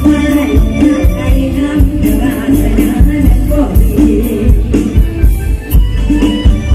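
Live Isan mor lam band music played loud over a PA, with a steady drum beat about twice a second under a melodic line and singing.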